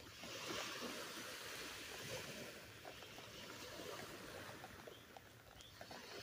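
Surf washing onto the beach, faint: a wave swells right at the start, eases off about five seconds in, and the next one builds near the end.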